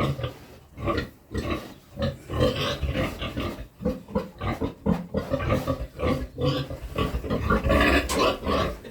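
A pig grunting over and over in short, irregular bursts. She is agitated, and her keepers take it that she is thirsty.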